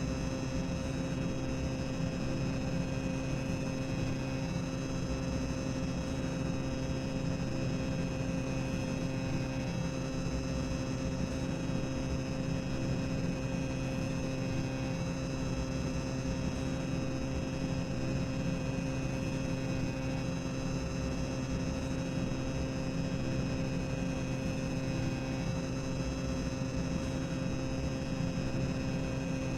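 Boiler-room sound-effect ambience from a theme-park ride: a continuous machinery hum with several held low tones over a steady hiss, unchanging throughout.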